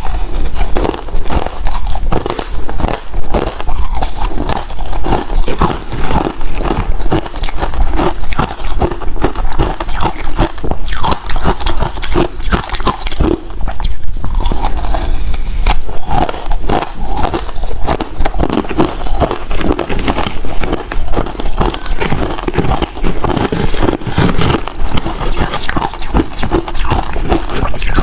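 Ice being bitten and chewed: a loud, unbroken run of crunches and cracks.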